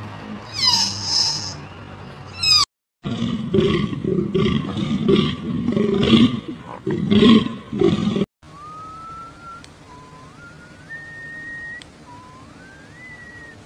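A string of dubbed animal calls. First a short falling call and a quick run of high chirps. After a cut, about five seconds of low calls in repeated pulses, then after another cut three whistles, each rising in steps.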